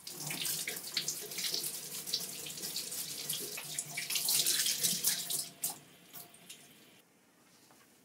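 Kitchen tap running into a stainless-steel sink as green onions are rinsed under the stream. The water stops about five and a half seconds in, followed by a single light knock.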